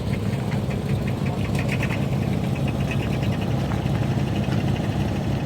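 A vehicle engine idling steadily, with a fast, light ticking running over the low hum.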